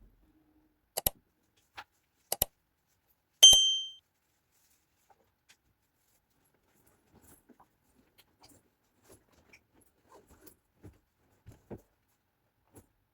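A few sharp clicks, then a single metallic clink that rings briefly about three and a half seconds in, followed by faint soft knocks.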